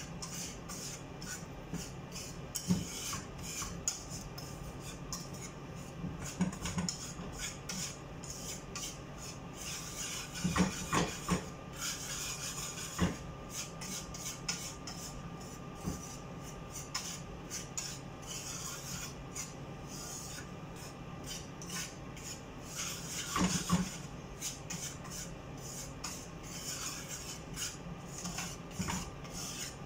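Wire whisk stirring and scraping browned flour and butter in a pan over low heat, a continuous rasping rub with a few louder knocks against the pan, around ten seconds in and again past twenty seconds.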